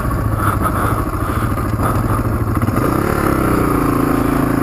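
Suzuki DR350's single-cylinder four-stroke engine running at low speed on a grassy trail, picking up revs about three seconds in and then holding steady.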